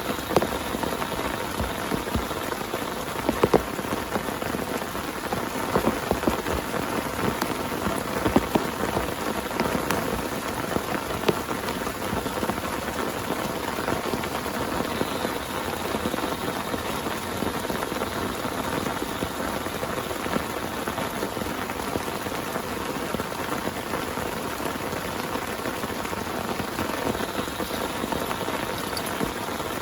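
Heavy rain falling steadily on a tent, with sharper single drop hits standing out now and then, more often in the first half.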